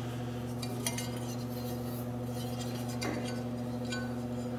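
Steady electrical hum, with a few faint light metallic clinks from a metal square with a brass stair gauge being handled against a steel flatbed side.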